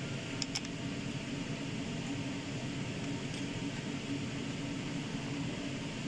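Steady mechanical hum with two light metal clicks about half a second in, as camshaft bearing caps are handled over the cylinder head.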